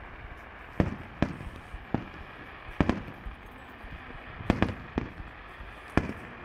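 Fireworks bursting: separate sharp bangs, some in quick pairs, every second or so over a steady background hiss.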